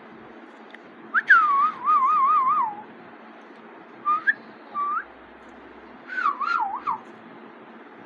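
Alexandrine parakeet whistling. A long whistled phrase ends in a wavering trill, two short rising whistle notes follow, and a warbling phrase comes near the end.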